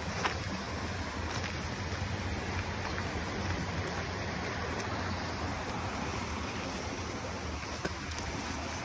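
Steady rushing of a mountain stream flowing through the rocky valley below, with a couple of faint footfalls on the dirt trail.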